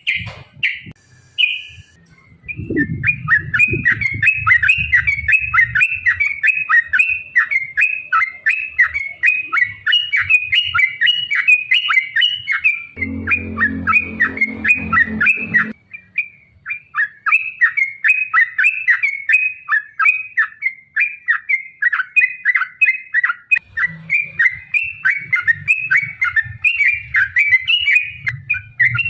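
Yellow-vented bulbuls (trucukan) singing a long, rapid chattering song of several notes a second. The song breaks briefly just after the start and again about halfway through. A low rumble sounds underneath at times.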